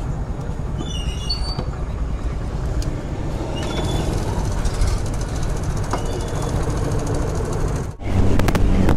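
Motorcycle riding in traffic: a steady low rumble of engine and road noise. Just before the end it breaks off abruptly into a steadier engine hum.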